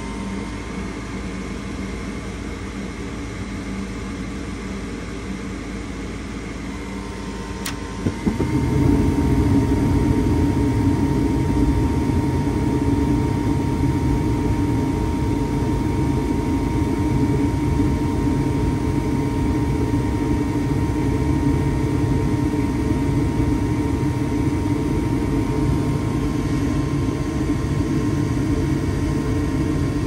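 2007 Heil gas furnace starting up: the draft inducer fan runs steadily with a thin whine while the hot surface igniter glows. About eight seconds in, a sharp click from the Honeywell gas valve opening is followed by the burners lighting, and a louder, steady low roar of burning gas carries on.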